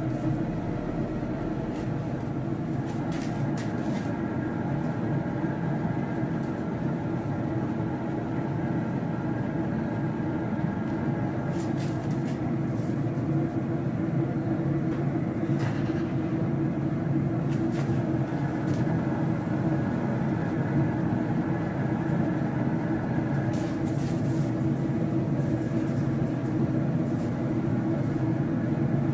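A Camp Chef SG pellet smoker, lid open, running with a steady, even hum from its fan and fire. A few light knocks come through as the ribs are laid on the grates.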